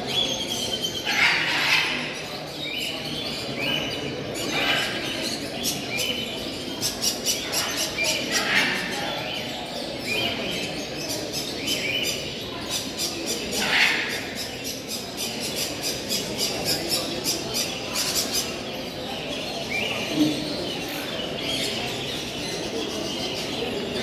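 Many caged show birds chirping and squawking at once: a dense, continuous mix of short high calls overlapping one another, with stretches of rapid clicking chatter.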